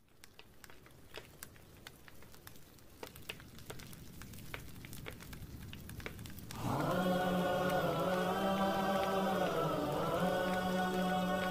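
Crackling of burning fire fading in and growing louder. About six and a half seconds in, a chorus of voices enters with a long held chanted note, the opening of a noha.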